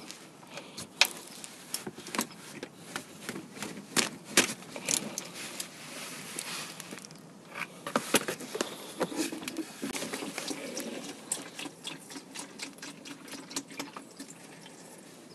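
Irregular clicks and knocks of a wrench and metal parts being handled at the oil drain plug of a 2001 Honda Civic's oil pan, as the old engine oil is let out to drain.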